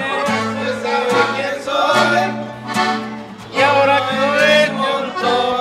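A man singing to an acoustic guitar played live, the chords strummed under his voice.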